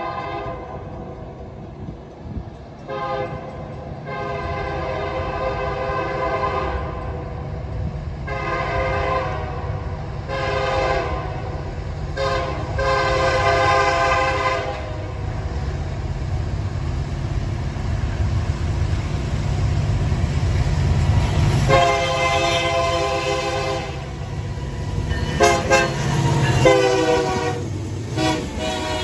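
Freight train's diesel locomotives approaching and passing. The locomotive's multi-note air horn sounds in a series of long blasts and one short one, over the low rumble of the diesel engines, which grows louder as the locomotives pass close by near the end.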